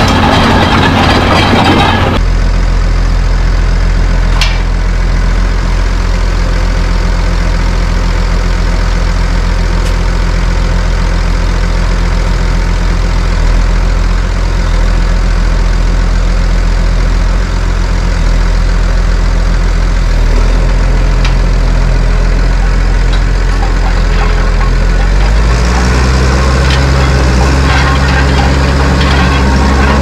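About two seconds of tractor and plough working the ground, then a cut to a Case 155 tractor's engine running steadily as it pulls a Väderstad Cambridge roll over ploughed ground. The engine note changes and gets louder in the last few seconds.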